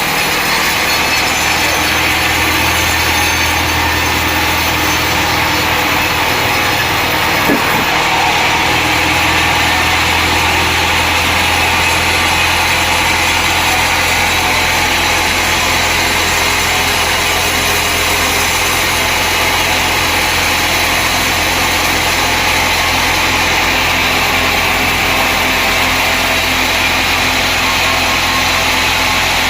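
Sawmill machinery running steadily: a continuous loud engine hum under a dense, even sawing noise, with one brief knock about seven seconds in.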